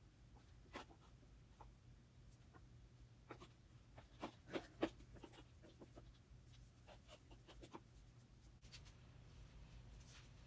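Near silence with a steady low hum and scattered faint clicks, a few louder ones about four to five seconds in: high-heeled shoes tapping on a tile floor as the wearer shifts and turns.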